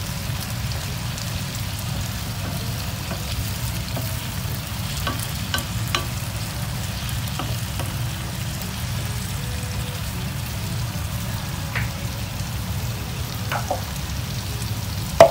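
Diced tomatoes and onions sizzling in a frying pan while a wooden spatula stirs them, with scattered light knocks of the spatula against the pan and a sharper knock near the end.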